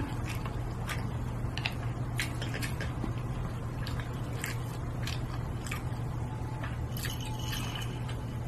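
Close-up chewing of a mouthful of sushi: irregular wet mouth clicks and smacks over a steady low hum.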